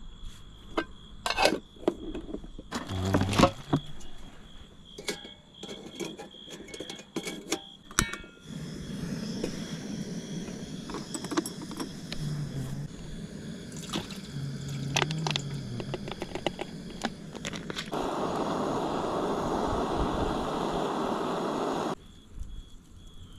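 Clatter and knocks of an aluminium mess tin and camp gear being handled, then a cassette-gas torch burner hissing steadily as it lights a small wood stove, louder for the last few seconds before it cuts off suddenly. A steady high insect trill sits under it all.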